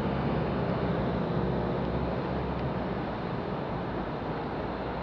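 Steady city traffic at a rain-wet junction: car engines running and tyres on the wet road.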